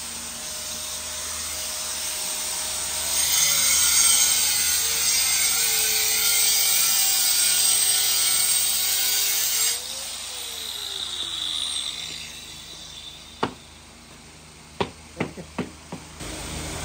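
Electric power tool cutting into a broken floor tile and its grout for about seven seconds, the motor pitch sagging under load, then switched off and spinning down. A few short sharp knocks follow near the end, over a steady airflow hiss.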